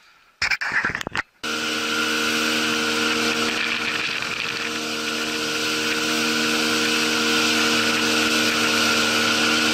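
Boat motor running steadily: an even drone with several held tones that starts abruptly about a second and a half in. Before it, a brief burst of loud noise.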